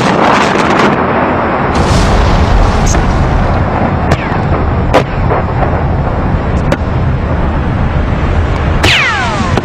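The long, dense rumble of a large explosion, with sharp cracks of further blasts about four, five and nearly seven seconds in. Several falling whistles come near the end.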